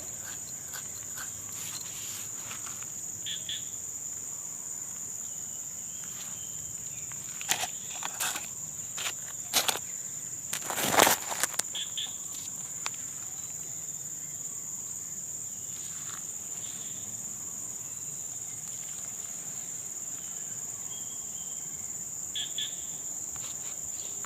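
Insects chirring in one steady, high-pitched drone. A scatter of short clicks and knocks breaks in about a third of the way through, the loudest near the middle.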